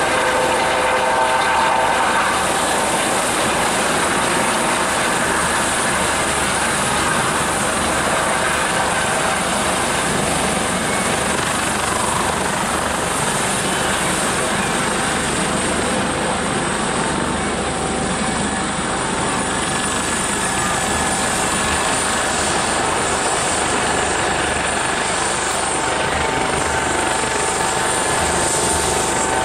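US Coast Guard MH-65 Dolphin helicopter coming in to land: steady rotor and twin-turbine engine noise with a high whine on top, as it hovers low and touches down on the grass.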